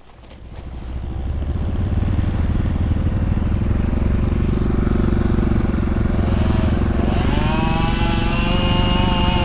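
Chainsaw running as it cuts into a tree trunk to fell it. About seven seconds in the throttle opens: a rising whine that then holds at high revs.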